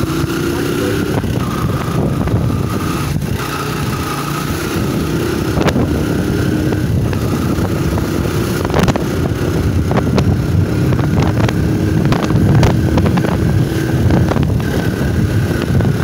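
Small motorcycle engine running at riding speed, heard from the bike itself, with wind noise on the microphone. Scattered short clicks and knocks come in from about a third of the way through.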